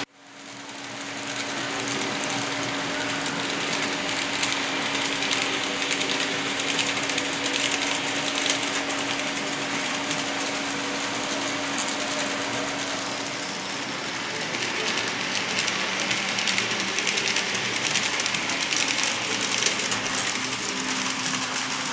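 Roco H0e model of the ÖBB 1099 locomotive running a train of coaches around a small layout: the model's motor hums steadily over a constant fine rattle and clicking of small wheels on the track. The hum drops lower about two-thirds of the way through.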